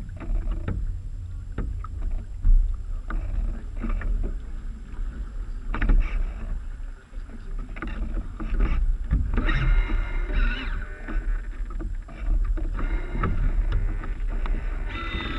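Water splashing and slapping against the hulls of a Mini40 model trimaran as it moves along, with wind rumbling on the camera's microphone. A few brief higher-pitched tones come in during the second half.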